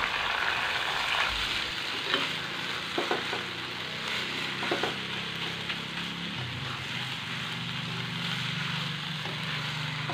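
Soaked tanghun noodles frying with egg and spice paste in a nonstick wok: a steady sizzle, with the spatula scraping and tapping the pan a few times as the noodles are stirred.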